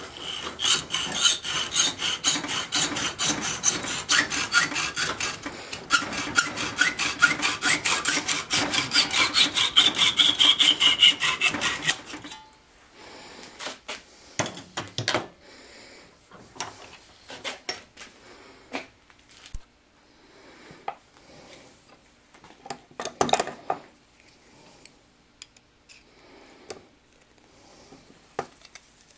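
Lenox hacksaw cutting a copper tube clamped in a bench vise: rapid, steady back-and-forth strokes for about twelve seconds, with a ringing note that slides down in pitch as the cut nears its end, then the sawing stops. After that come scattered quieter clicks and taps of metal tools being handled on a wooden bench.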